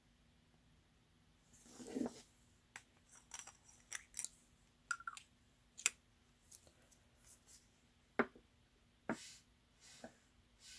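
Faint handling of brass fountain pens: a Kaweco Brass Sport being uncapped and its cap pushed onto the back end to post it, with light clicks of metal on metal and taps as the pens touch the wooden tabletop. A short rubbing sound comes about two seconds in.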